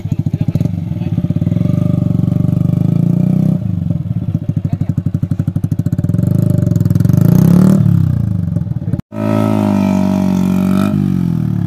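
Yamaha R15 V3 single-cylinder motorcycle engine running and being revved, rising in pitch about six to eight seconds in and then dropping back. After a short break it runs on at a steady speed.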